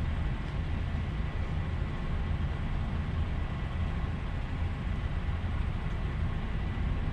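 Heavy diesel lorry engine idling: a steady low rumble with a faint thin high tone.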